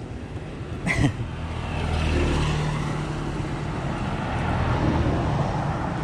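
Motor vehicle engine running nearby, a steady low hum that swells about two seconds in, with one sharp knock about a second in.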